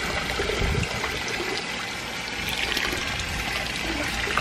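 Hot water pouring steadily into a baby's bath as it is filled for bathing.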